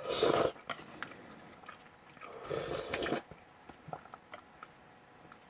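A person slurping noodles twice: once at the very start and again, a little longer, about two and a half seconds in.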